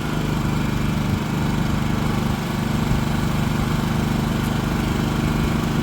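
Champion dual-fuel portable generator's engine running steadily.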